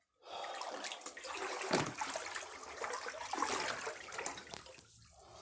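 Flood water in a basement sloshing and splashing irregularly, starting shortly after the beginning and fading near the end.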